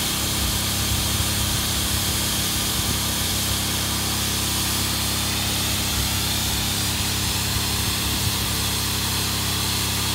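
Air pump running steadily while inflating an inflatable platform through hoses: a constant motor hum under an even rush of air.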